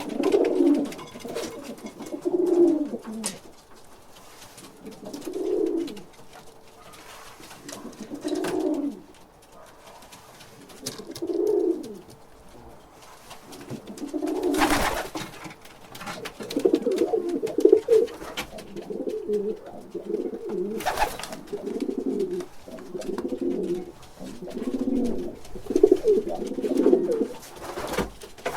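Pigeon cooing: low coos about every three seconds at first, then from about halfway through a quicker run of coos, one close after another. Two brief knocks come in between.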